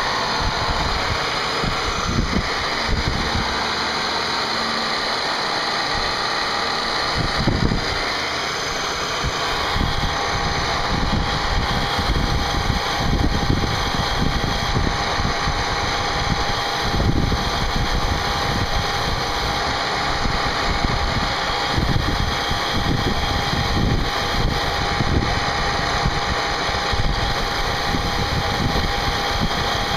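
CNC machine running as it machines a part: continuous machine noise with uneven low rumbling, and a steady whine that grows stronger about a third of the way in.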